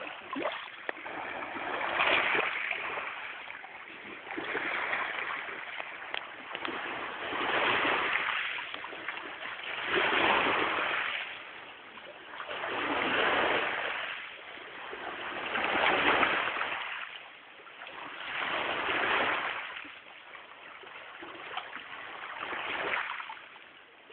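Water surging in even swells, one about every three seconds.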